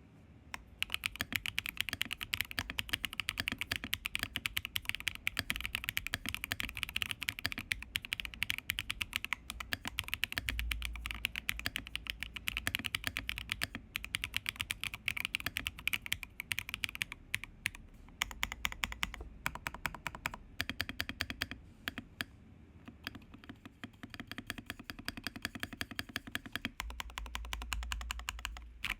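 Typing test on a Hibby June mechanical keyboard with HMX Xinhai switches, Durock stabilisers and Milky Way Yeti keycaps in a silicone tray case: a fast, continuous run of key presses and clacks, broken by a few short pauses.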